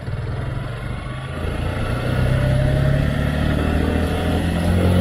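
Suzuki Gixxer SF 150's single-cylinder engine pulling away and accelerating, its pitch rising steadily and growing louder.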